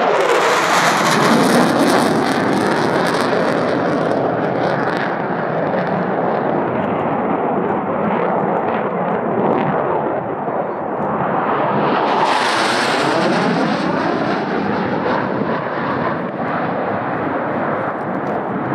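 F-15 fighter jet's twin engines in a loud low-level flypast. The jet roar is sharpest in the first few seconds, eases, then swells again about twelve seconds in with a sweeping, phasing tone as it passes.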